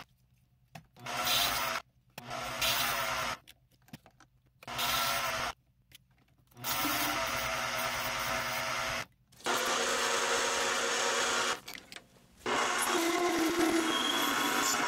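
Mini metal lathe running while it turns a brass bushing, heard in about six short stretches that start and stop abruptly with near-silent gaps between them. Near the end, a hand deburring tool scrapes the bore of the spinning brass part.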